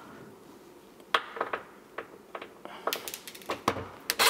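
Scattered light clicks and knocks of screws and hardware being handled against a wooden kitchen sink cabinet, starting about a second in, with no power tool running.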